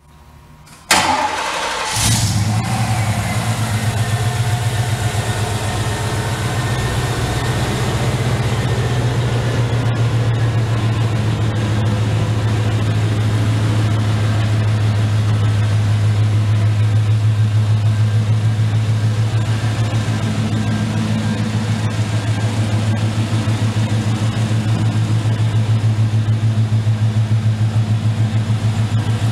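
The 1991 GMC Sierra's original 5.7-litre V8 being started: it cranks briefly about a second in, catches about two seconds in, then settles into a steady idle.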